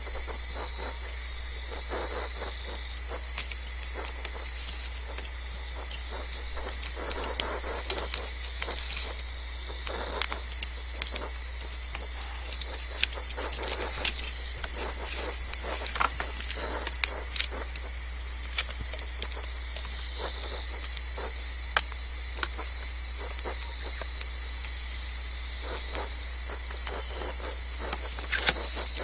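Frozen pork sizzling on a grill: a steady hiss with scattered pops and spits as the meat thaws and cooks.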